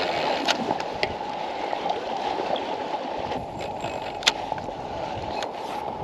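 Steady washing and sloshing of water, with a few sharp clicks, the loudest about four seconds in.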